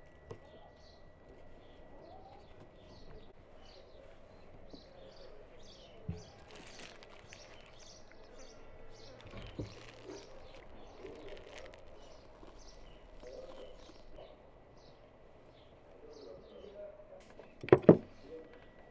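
Birds chirping steadily in the background, with a couple of light knocks. Near the end come two sharp, loud knocks in quick succession: a knife cutting a chocolate bar on a wooden cutting board.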